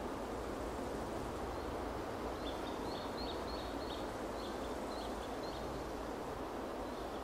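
Steady rushing wind noise, with a small bird giving a run of short, high chirps in the middle.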